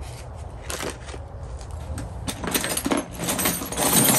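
Metal hand tools clinking and clattering as they are handled and set down on a pile of tools. There are a few separate clinks at first, then a denser, louder clatter in the second half.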